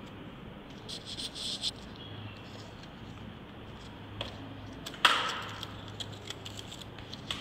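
Sheets of craft paper rustling and crinkling as cut-paper grass strips are handled and pressed onto a paper sheet. About five seconds in comes a sudden sharp tap, the loudest sound, as the hands come down on the paper. A faint low hum runs underneath.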